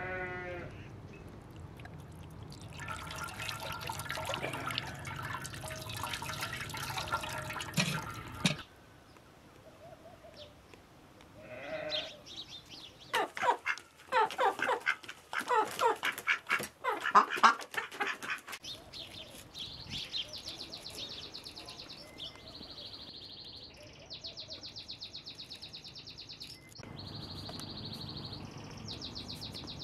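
Water poured from a kettle splashing over a raw chicken into a metal basin for the first several seconds. After a pause, ducks and chickens call loudly for about six seconds. From about two-thirds of the way in, a high, rapid chirring comes and goes in bursts of a few seconds.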